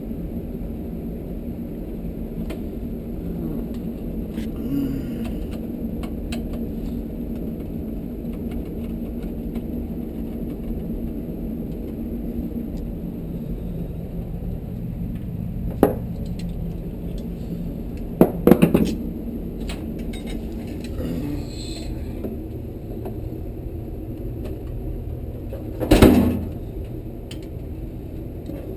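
Metal knocks and clanks from tools and parts of a gas tankless water heater being worked on to free a stuck burner: a sharp knock a little past halfway, a quick rattle of several clanks soon after, and a louder knock near the end, over a steady low hum.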